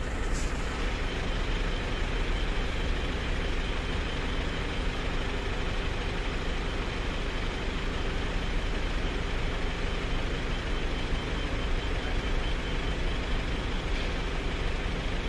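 Toyota Hilux 2KD-FTV 2.5-litre four-cylinder common-rail diesel idling steadily, now running with a new crankshaft position sensor fitted. A faint click about half a second in.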